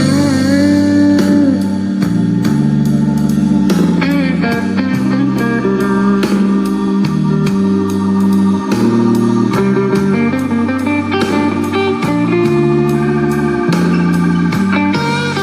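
Blues-style guitar music played back through a portable Bluetooth speaker: guitar lines with sliding bends over a steady drum beat and a bass line that steps between low notes.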